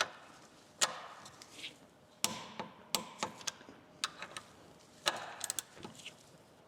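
Scattered sharp metallic clicks and clinks, a dozen or so at uneven spacing, some with a brief ring: hand tools and bolts being handled and set down.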